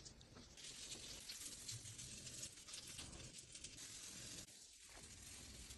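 Near silence: a faint steady hiss with a scatter of soft ticks and crackles.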